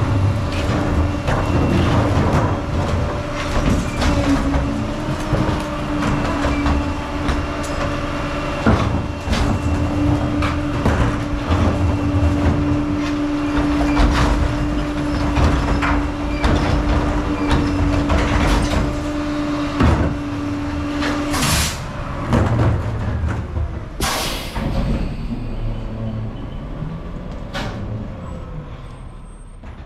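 CCC garbage truck with a 30-yard Pak-Mor rear-loading body running with a steady hum, with many knocks and bangs as trash carts are tipped into the hopper. About two-thirds through come two short air-brake hisses, then the truck moves off and its sound fades.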